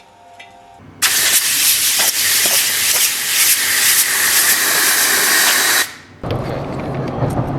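Loud, steady hiss of escaping air or spray, starting about a second in and cutting off sharply about five seconds later. A lower, steady rumbling sound follows near the end.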